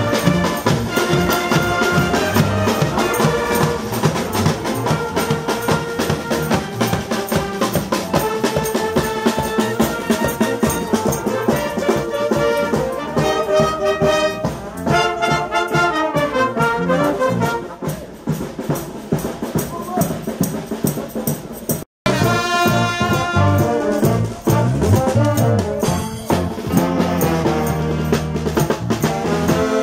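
Music led by brass instruments, trumpet and trombone, with percussion. It breaks off for a moment about 22 s in, then carries on.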